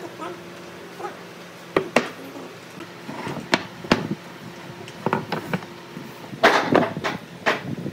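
Wooden blocks being handled on a wooden workbench: scattered sharp knocks and clacks as the pieces are set down and fitted together, with a busier run of knocking and scraping near the end.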